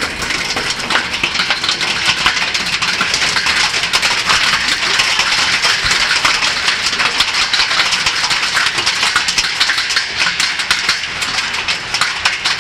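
Heavy hail falling with rain: a loud, dense clatter of countless hailstones striking, over a steady hiss of rain.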